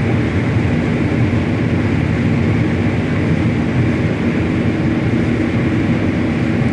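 Combine harvester running steadily while harvesting corn: a constant, even machine drone with a low steady hum.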